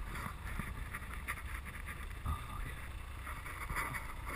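Snowmobile engine idling steadily, a continuous low rumble.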